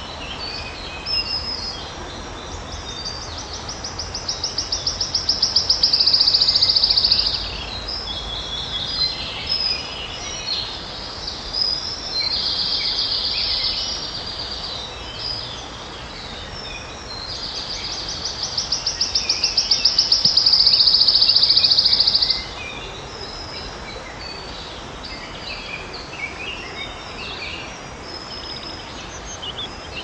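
Wood warbler singing: two long trills of rapidly repeated high notes that speed up and grow louder before stopping abruptly, the first a few seconds in and the second about two-thirds through, with a shorter, steadier trill between them and scattered single notes.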